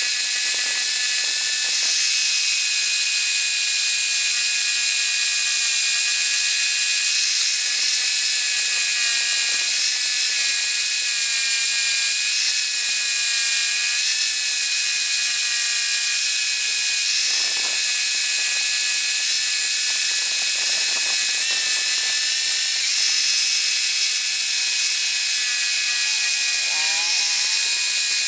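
Homemade scroll saw running steadily, its reciprocating blade cutting through a wooden board: a constant, high-pitched mechanical whir with a few steady tones that shift briefly near the end.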